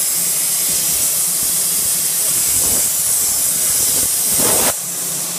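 CNC plasma cutter torch cutting steel sheet: a loud, steady hiss of the plasma arc and air jet. The hiss drops abruptly in level near the end, leaving a quieter hiss.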